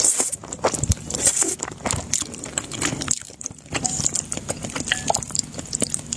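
Close-miked eating sounds: wet slurping, smacking and chewing of saucy black-sauce noodles, a quick run of short wet clicks with chopsticks moving through the noodles.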